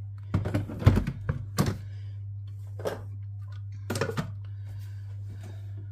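Hard clunks and clicks as the stainless-steel Thermomix mixing bowl is set into its base and the plastic lid is put on, a cluster of knocks in the first two seconds and a few more around four seconds in, over a steady low hum.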